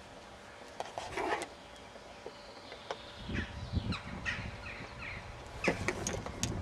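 Old Brill push reel mower being handled and set rolling on grass: scattered sharp metallic clicks and knocks about a second in and again near the end, with a run of short, high, falling squeaks in the middle.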